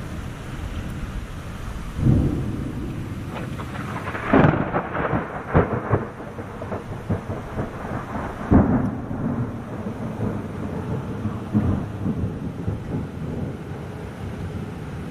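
Thunder during a rainstorm: a steady low rumble with sudden cracks and claps, a burst of several sharp cracks about four seconds in and another loud clap a little past the middle, over the hiss of rain.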